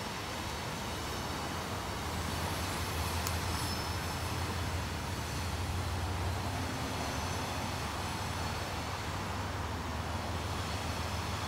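Freight train rolling across a steel girder bridge: a continuous low rumble of wheels on rail that grows a little stronger about two seconds in and then holds steady.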